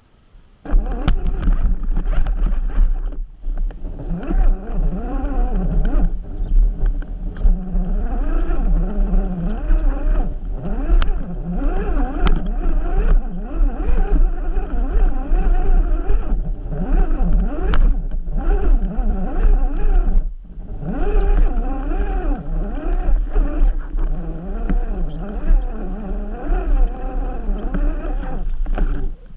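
RC rock crawler's electric motor and geared drivetrain whining, the pitch rising and falling with the throttle. It dips briefly a couple of times, with scattered knocks and scrapes as the truck climbs over the course.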